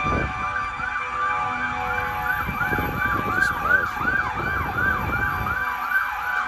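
Emergency vehicle siren in fast yelp mode, rising and falling about three times a second, over a low background rumble.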